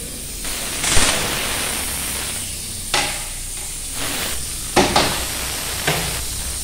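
A few sharp metallic clicks and knocks, about five in all and spaced irregularly, from a motorcycle's rear drum-brake arm and adjuster being handled. A steady hiss runs underneath.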